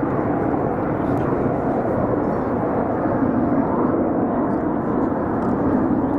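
BAE Hawk jets' Adour turbofan engines, a steady loud rumble of jet noise as the aircraft fly their display.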